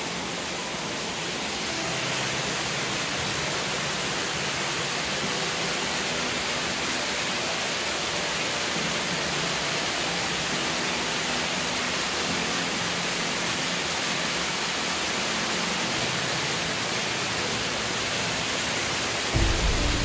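Snowmelt waterfall spilling over a sandstone lip and splashing into a pool below: a steady rushing hiss. A low rumble on the microphone comes in near the end.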